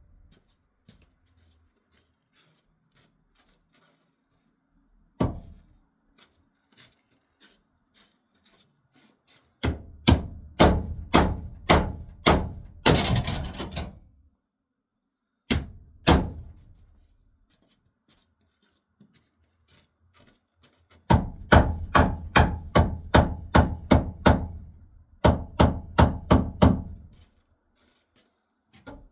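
Hammer blows driving a new pressure-treated wooden crossmember into place: a single blow, then runs of quick strikes about two or three a second, with a short scraping noise in the middle run.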